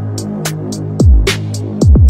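Electronic background music with a deep, falling kick drum, high hi-hat ticks and a sustained bass line.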